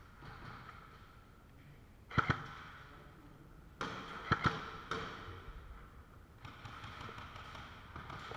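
Airsoft gun shots: sharp pops, two close together about two seconds in, another quick pair about four seconds in and a last one shortly after.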